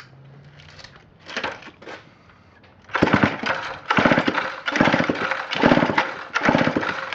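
Homelite C-5 two-stroke chainsaw being pull-started. From about three seconds in, the recoil starter cord is yanked in a quick run of pulls, about one a second, each pull spinning the engine over with a fast ticking chug. The engine never fires, which the owner puts down to stale, gummy old fuel.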